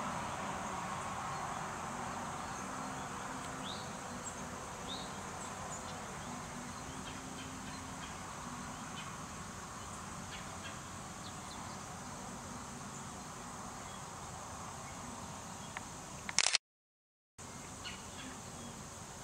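Outdoor late-summer ambience with a steady high-pitched insect chorus and a few faint short chirps. About sixteen seconds in there is a brief loud crackle, then the sound cuts out completely for under a second before the chorus returns.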